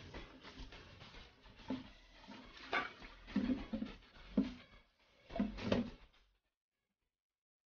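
Wet squelching, sloshing and light knocks as hands wash pork intestine casing inside and out in a plastic bowl in a stainless steel sink, in irregular bursts; the sound cuts off a little over six seconds in.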